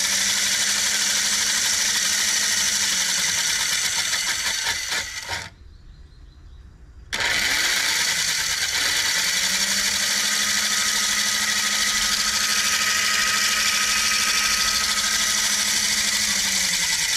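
Lionel 318 Standard Gauge locomotive's freshly fitted replacement electric motor and gears running on a test with a loud whir. The power cuts off about five seconds in and it goes quiet for a second and a half, then winds up again and runs steadily with a low hum, working properly.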